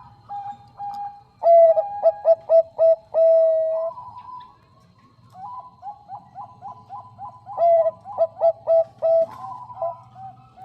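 Zebra dove (Thai 'Bangkok' perkutut) cooing: two loud phrases of rapid staccato coos, the first ending in a longer held note, with softer coos in between and after.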